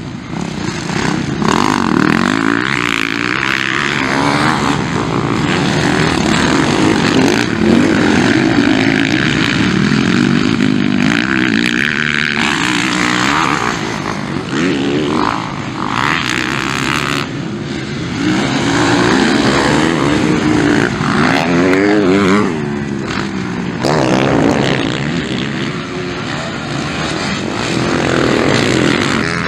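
Motocross dirt bike engines racing past, revving up and down over and over as riders accelerate out of corners and change gear, with several bikes heard in turn.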